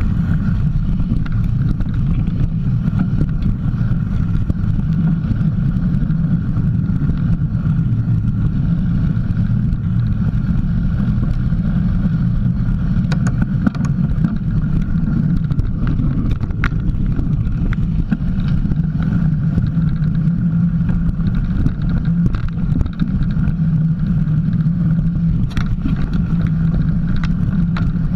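Steady, muffled rumble of a mountain bike rolling over a dirt trail, tyre and wind noise picked up close to the front wheel, with a few sharp clicks and knocks from the bike over bumps.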